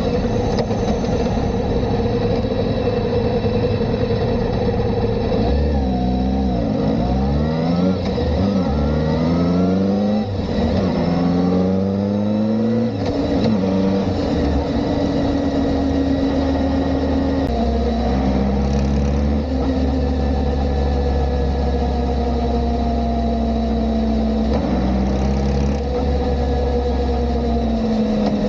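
Kawasaki ZR-7S air-cooled four-cylinder motorcycle engine under way. About five seconds in it accelerates through several gears, the pitch climbing and dropping back at each upshift. It then cruises, the engine note slowly falling.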